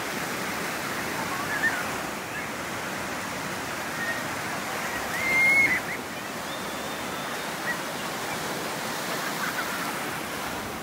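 Ocean surf breaking and washing over the sand in a steady rush, with a brief high cry about halfway through.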